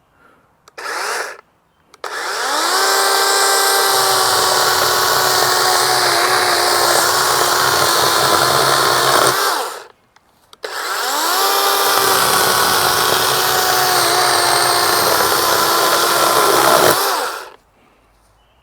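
Dewalt 20V Max XR brushless cordless chainsaw cutting through a 2x4 board. A short blip of the trigger comes first, then two long runs: each time the electric motor spins up with a rising whine, holds a steady whine as the chain cuts through the wood, and stops sharply.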